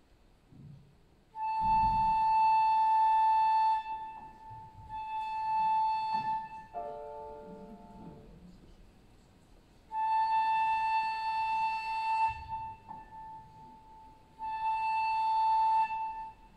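Concert flute sounding the same long, high note four times, each held for one to two seconds, with pauses between and a shorter, lower note in the middle. The flute is being tuned to the piano before the piece begins.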